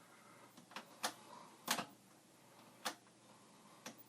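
A handful of short, sharp clicks at irregular spacing, from hands working the equipment's switches and controls.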